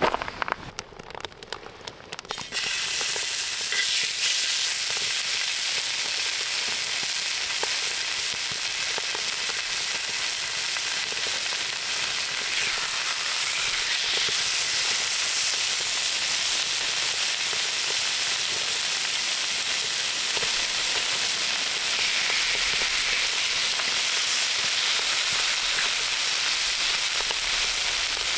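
Pork belly slices sizzling on a hot griddle over a wood fire: a dense, steady hiss that sets in about two seconds in, after a few quieter crackles.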